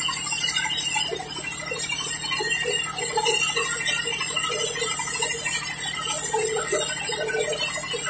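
Large sawmill band saw running steadily as it rips a mahogany plank, a constant high hiss over a low mechanical hum.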